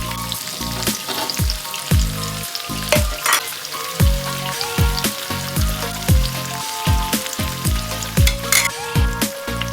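Food sizzling in hot oil in a pan, a steady frying hiss, under background music with a beat of about two thumps a second.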